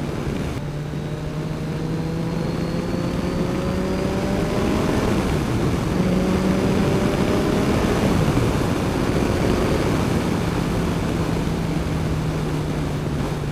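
Kawasaki Ninja 1000's inline-four engine running under way. Its pitch climbs slowly, drops about five seconds in, climbs again, and then settles lower and steady for the second half.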